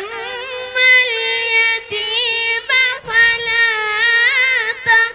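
A boy's unbroken voice reciting the Quran in melodic chant (tilawat), holding long, ornamented notes with a few short breaths between phrases.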